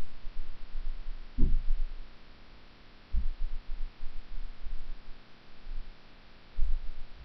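Screwdriver work on a hard drive in a steel computer case's drive bay: a low hum with a few dull thumps.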